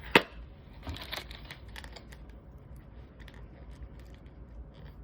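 Plastic packaging handled by hand: a sharp click just after the start, a small cluster of clicks and light rustling about a second in, then faint scattered taps.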